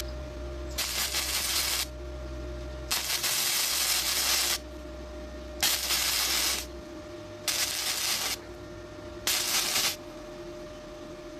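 Flux-core arc welding on thin exhaust pipe with a Flameweld multiprocess welder: the arc crackles and hisses in about five short bursts of roughly a second each, with pauses between as the weld is laid in stitches. A faint steady hum runs underneath.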